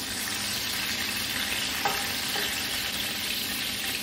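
Garlic, ginger, green chillies and cumin seeds sizzling steadily in hot oil in a nonstick frying pan, stirred with a wooden spatula, with one light click about two seconds in.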